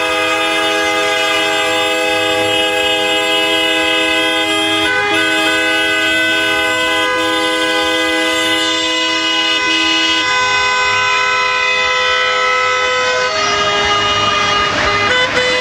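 Several car horns held down at once in a protest motorcade, their different pitches overlapping in a steady chorus with short breaks. Near the end most of them stop, a brief rush of noise comes in, and one horn sounds again.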